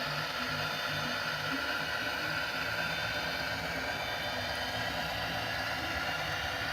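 Sound decoder of an HO scale model diesel locomotive playing its engine sound through the model's small speaker: a low engine note pulsing at an even rhythm over a steady hiss, the locomotive running slowly.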